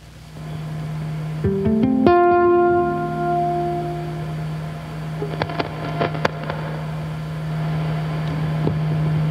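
Amplified ukulele through effects pedals: one low note held steady, with a few plucked notes near two seconds that ring on above it. A few short clicks come around the middle as the pedals are worked.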